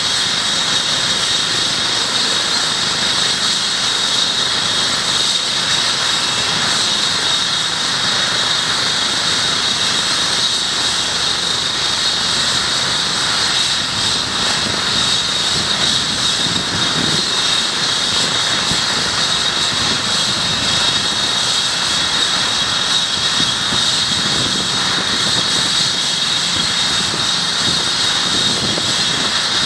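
Eurocopter EC135 trauma helicopter running on the ground with its main rotor turning. Its twin turboshaft engines give a steady high whine over the rotor and engine noise, holding at a constant pitch before lift-off.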